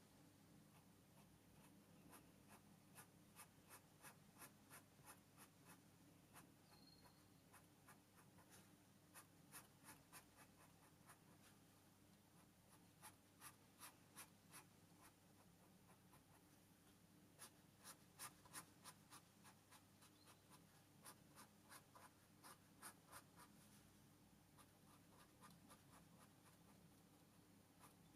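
Felt-tip colouring pen scratching on paper in quick short strokes, colouring in a drawing. The strokes are faint and come a few a second, in bursts with short pauses between.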